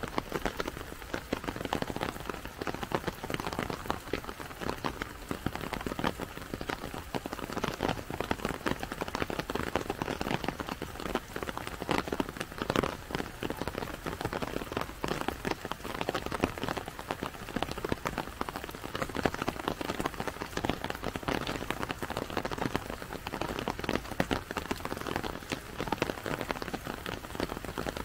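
Steady rain: a dense, even patter of many drops hitting close by.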